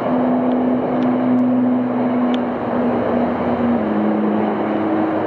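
GO Transit commuter train running past: a steady loud rumble with a droning engine tone that shifts pitch about four seconds in.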